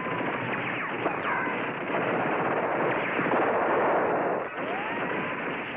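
Sustained gunfire in a battle scene, a dense crackle of shots, with a few short whistling glides passing through it.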